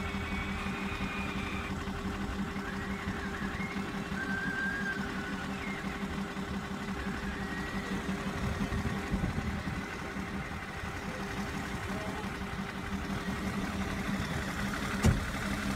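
Simulated engine idling sound of a toy RC cable-shovel crawler crane: a steady low drone with a fast, even pulse. A single sharp click comes near the end.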